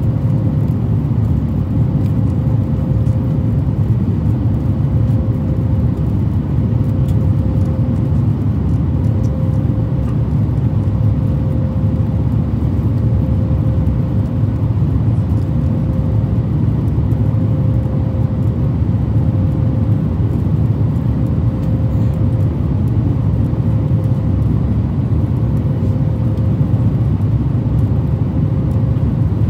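Boeing 737 MAX 9 cabin noise from a window seat by the wing: a loud, steady low rumble and whoosh of the CFM LEAP-1B engines and airflow during the climb after takeoff. A faint hum swells and fades about every two seconds.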